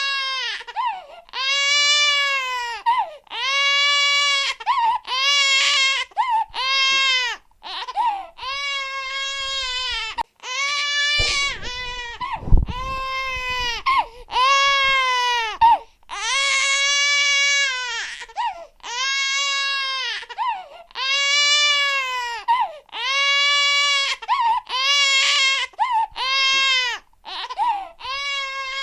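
An infant crying loudly in a run of wails, about one every two seconds, each rising then falling in pitch, with short catches of breath between. About twelve seconds in comes a dull low thump, the loudest moment.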